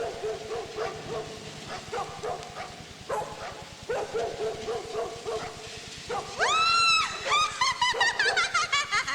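A dog barking repeatedly, then about two-thirds of the way through a loud high yelp, followed by a string of quick yelps and whimpers falling in pitch.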